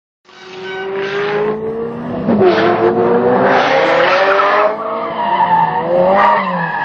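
A car's engine revving, its pitch climbing and dipping, with tyres squealing in a skid in several bursts. The sound cuts in suddenly a moment after the start.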